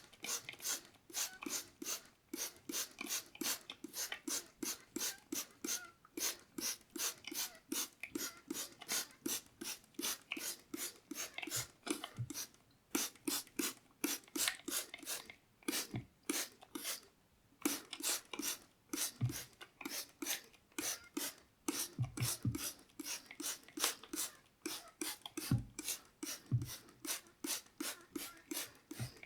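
Close-miked water sounds in a quick, regular run of short crisp strokes, about three to four a second, pausing briefly twice.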